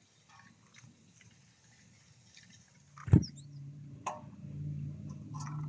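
Light scattered taps and clicks, then a sharp thump about three seconds in, followed by a few short high chirps and a low steady hum.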